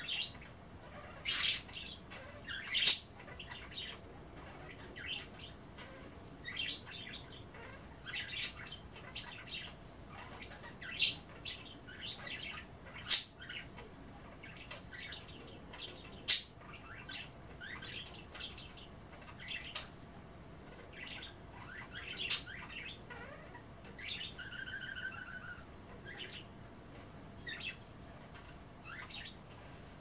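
Several budgerigars chattering, with a run of short chirps and several sharper, louder calls. Late on there is a brief held whistle.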